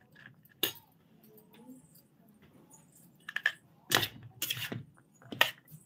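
Steel spoon clinking and scraping against a steel plate while mixing a sprouted-gram salad: a handful of sharp, irregular clinks, most of them in the second half, with one longer scrape about four and a half seconds in.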